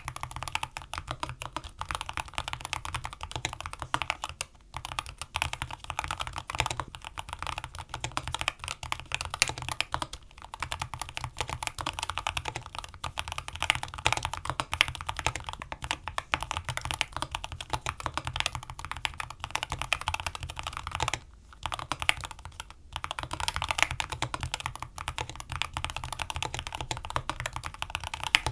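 Keychron K2 HE keyboard with Hall-effect magnetic switches being typed on quickly and continuously, a dense stream of keystrokes. There are short pauses about four and a half seconds in and again for a moment a little past twenty seconds.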